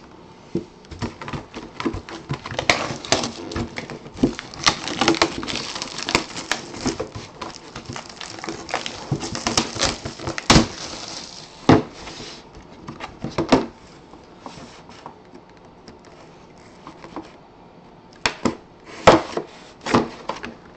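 Plastic shrink wrap crinkling and tearing as it is cut and pulled off a cardboard box, with sharp taps and knocks from the box and cutter being handled. It goes quieter for a few seconds, then more knocks come near the end.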